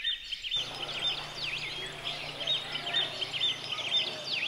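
Birds chirping repeatedly in short calls, many overlapping, over a low steady hum that starts about half a second in.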